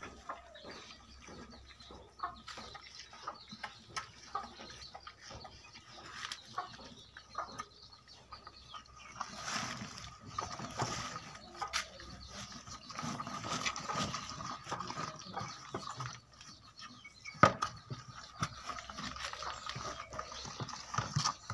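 A cow slurping and munching wet feed from a plastic bucket: irregular wet sloshing and small clicks, busiest in the middle, with one sharp knock about 17 seconds in.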